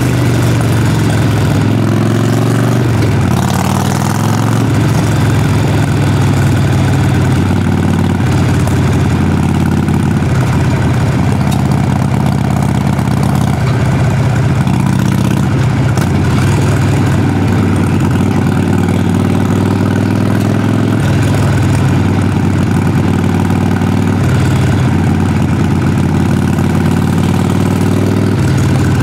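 Exhaust of a Harley-Davidson Sportster Forty-Eight's air-cooled V-twin, recorded close to the pipe, running at low revs with a deep rumble. The pitch slides up and down a few times in the first few seconds as the throttle changes, then holds fairly steady.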